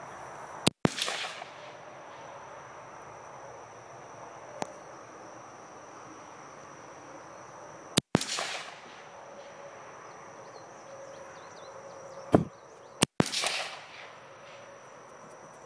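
AR-15 rifle with a 14-inch barrel firing three .223 rounds (American Eagle 55 grain), spaced several seconds apart, each shot followed by a short echo. A knock sounds just before the third shot.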